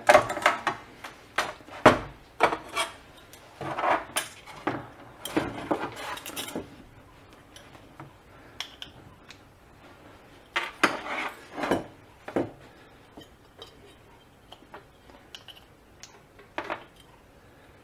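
Scattered hard clicks and light knocks from a ceramic ozone plate and its connector block being handled and set against a hard work surface. They come thick over the first several seconds, again about eleven seconds in, and once more near the end.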